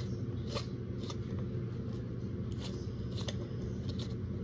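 Short, irregular scratchy rustles, a few a second, as a plastic kinetic-sand extruder bottle is pressed and sand squeezes out through its nozzle, over a steady low background hum.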